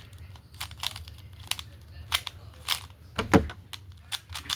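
Plastic puzzle cubes clicking and clacking as they are handled and turned: irregular sharp clicks about every half second, the loudest about three seconds in, over a faint low hum.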